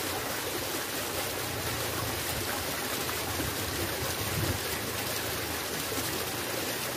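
Steady, even rushing of running water with no breaks.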